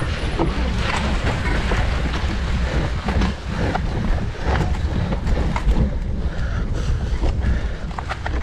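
Wind buffeting the microphone as a mountain bike is ridden at race speed, a steady low rumble with frequent short clicks and rattles from the bike over the rough trail.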